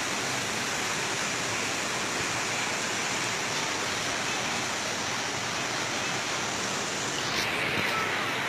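Steady rush of water pouring and splashing into concrete trout-rearing raceways.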